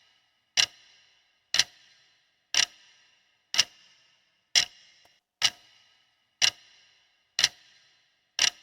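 Countdown-timer sound effect of a clock ticking steadily about once a second, each tick a sharp click with a short metallic ring.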